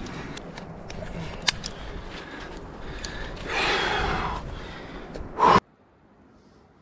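Ice-climbing hardware clicking and clinking as a leader places an ice screw and clips the rope, with a hard breath from the climber a little past the middle. A short loud rush follows and the sound cuts off abruptly to faint background.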